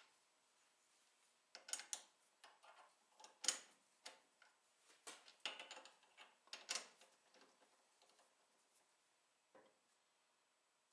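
Chuck key turning the jaw screws of a four-jaw lathe chuck while a square part is centered by eye: a run of light metallic clicks and ticks for about five seconds, then one more click near the end.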